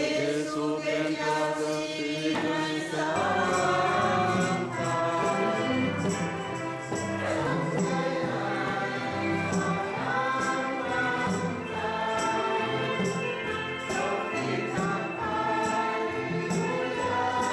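Congregation and choir singing a hymn together, with electronic keyboard accompaniment and a steady light percussion beat.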